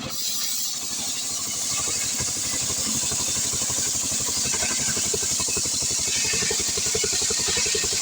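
Stihl 070 two-stroke chainsaw running steadily at a fast, even firing rate, with a bright hiss coming in above the engine note about a second in.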